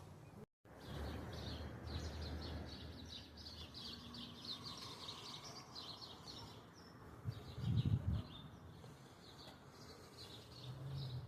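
Small birds chirping repeatedly over a low steady rumble, with a short louder low thud about eight seconds in.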